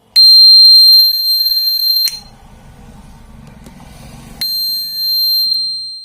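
Homemade doorbell's 6–12 V battery-powered buzzer sounding a loud, steady, high-pitched tone for about two seconds, going silent, then sounding again for about a second and a half.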